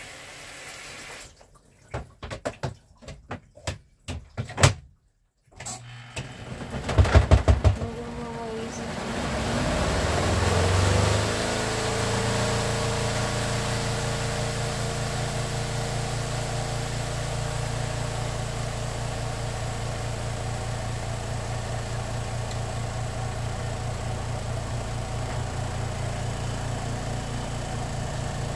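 Portable twin-tub washing machine: a few clicks and knocks from its controls, then its electric motor starts, builds up over a couple of seconds and runs on with a steady low hum and a hiss.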